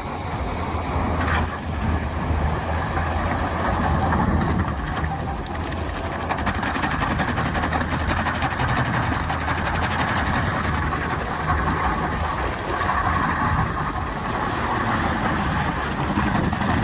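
Heavy forestry machine running steadily: a low engine drone under a constant noisy wash.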